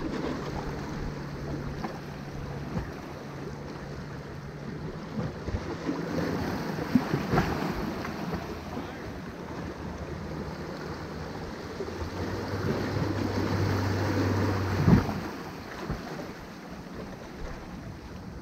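Small waves splashing against the jetty's rock boulders, with wind on the microphone and a low steady boat-engine hum behind. Two louder splashes stand out, one about seven seconds in and one about fifteen seconds in.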